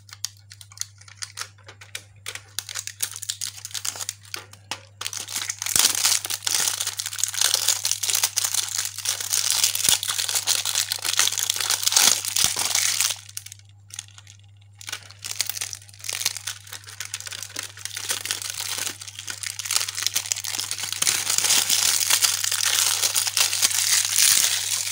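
Crinkling, crackling handling noise that stops briefly about halfway through, over a steady low hum.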